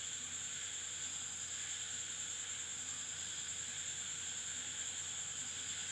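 Steady faint hiss with a thin high-pitched whine and no distinct events: recording background noise.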